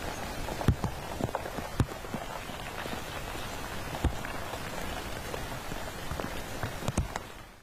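Steady rain with big drops striking a nearby surface as sharp, irregular ticks.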